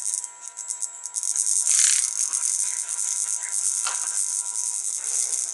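A Samsung NP500P4CH laptop's built-in speakers playing music with heavy crackling and rattling distortion. The sound is tinny, with almost no bass. The crackle is the sign of faulty speakers.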